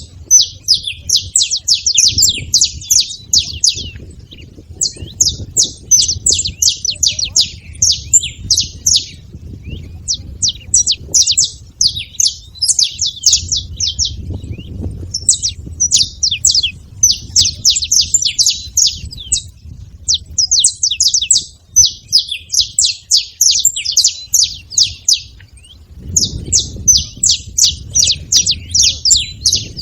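Several saffron finches singing: rapid strings of high chirps in phrases a few seconds long, one after another with short breaks, over a low rumble.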